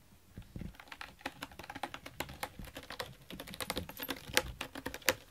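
Cat picking at cardboard with its claws and teeth: a rapid, irregular run of crackly clicks.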